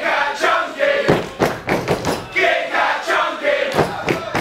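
Wrestling crowd shouting and chanting, with several sharp thuds on the ring canvas.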